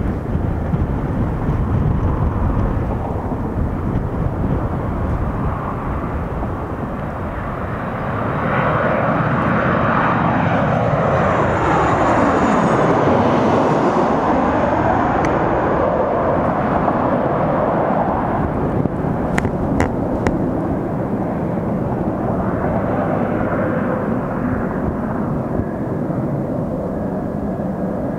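Boeing P-8 Poseidon's twin CFM56 turbofans as it flies low overhead on landing approach with gear down. The jet noise grows loud about a third of the way in and peaks as it passes overhead, with a phasing sweep that falls in pitch as it comes over and rises again as it moves away. It then settles into a steady rumble.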